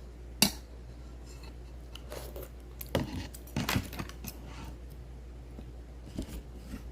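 Eating at a table: a sharp clink of a utensil against a bowl about half a second in, then a cluster of shorter clinks and scrapes about three to four seconds in, and a couple of soft taps near the end.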